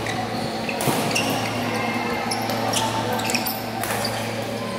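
Badminton rally in a large hall: rackets striking the shuttlecock with sharp knocks every second or so, and shoes squeaking on the court, over a steady low hum.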